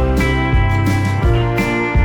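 Background music: plucked acoustic guitar playing sustained chords with a steady rhythm.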